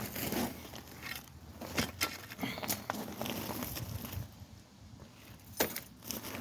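Scattered light clicks and metallic knocks of hand tools and brake parts being handled and fitted, with a few sharper knocks about two seconds in and near the end.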